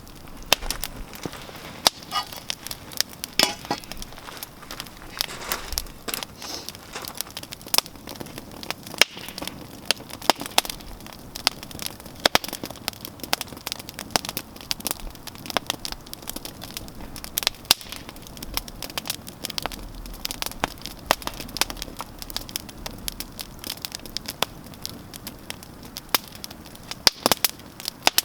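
Wood campfire burning, with frequent irregular sharp crackles and pops over a steady low hiss of flame, and a few short sizzling hisses a few seconds in.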